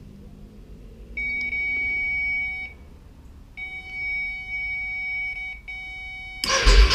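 Electronic circuit tester giving a steady high-pitched beep as its probe finds live wires: one beep of about one and a half seconds, a longer one of about two seconds, then a short one. A sudden loud, rough noise cuts in just before the end.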